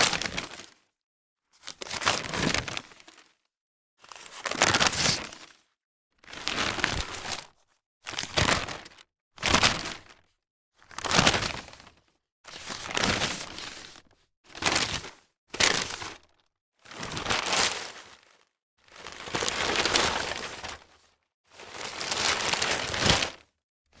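A newspaper's sheets being handled and rustled in about a dozen separate rustles, each a second or so long, with dead silence between them.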